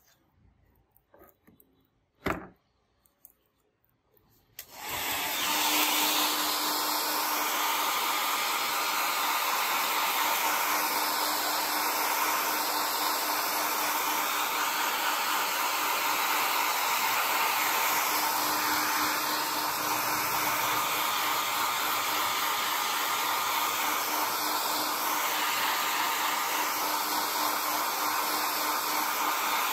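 A hand-held hair dryer switches on about five seconds in and blows steadily, a rush of air with a faint hum under it. Before it starts there are a few small knocks.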